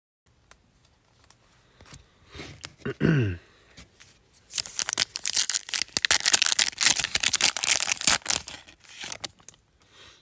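The foil wrapper of an NBA Hoops Premium Stock trading-card pack being torn open and crinkled by hand: a dense run of crackling from about four and a half seconds in to about nine, after a few faint handling clicks.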